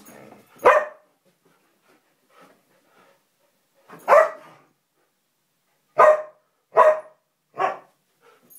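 A Samoyed and a Siberian Husky barking as they play-fight: one sharp bark about a second in, another near the middle, then three more in quick succession near the end, with faint scuffling between.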